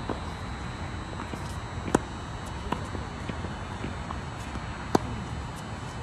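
Tennis rally on a hard court: sharp pops of the ball off racket strings and bounces on the court, the two loudest about two seconds in and near the end, with fainter ones in between.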